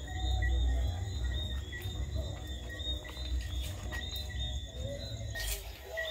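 Crickets chirping in a steady, evenly repeating pulse over a low rumble; the chirping cuts off suddenly a little after five seconds in.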